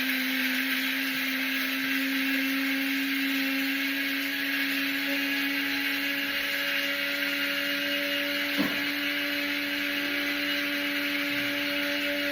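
Small electric motor running steadily, its hum creeping slightly up in pitch, with one short click about eight and a half seconds in.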